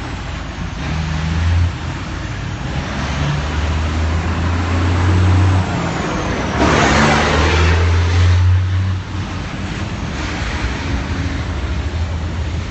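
Open-sided passenger vehicle on the move, heard from its bench seats: a low engine drone that rises and drops in stretches over steady road and wind noise. A louder rush of noise lasts about two seconds in the middle.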